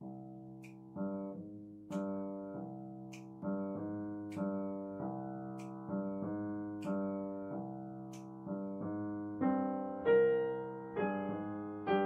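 Upright piano playing a slow instrumental introduction: chords struck in a steady pulse, with higher notes coming in louder about ten seconds in.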